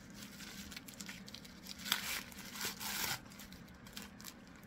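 Gift wrapping crinkling and tearing as a taped gift package is opened by hand, in scattered rustles, loudest for about a second starting around two seconds in.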